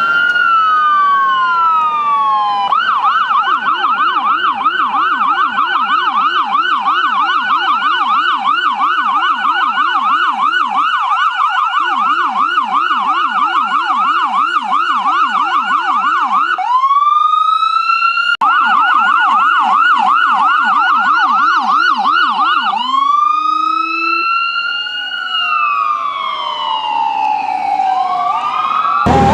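Emergency vehicle's electronic siren: a falling wail, then a fast yelp sweeping about three to four times a second for over ten seconds, with a second, lower-pitched tone yelping along for much of it. Twice it switches to a rising wail; the second wail climbs and falls slowly before the sound cuts suddenly to a louder, noisier one right at the end.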